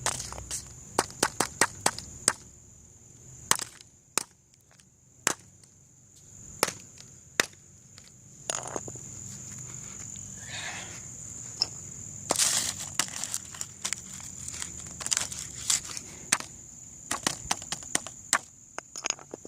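Irregular sharp cracks and crunches, some in quick clusters, as a fart-sound birthday card is smashed apart.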